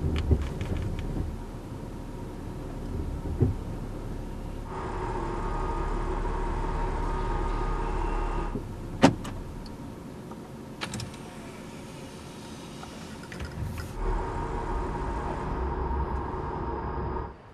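Audi car parking itself: a low steady hum with stretches of electric whirring, and one sharp click about nine seconds in.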